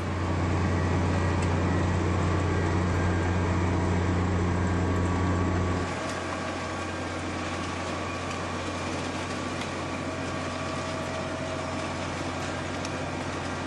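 Heavy rail track-maintenance machine running: a steady low hum that drops to a quieter level about six seconds in.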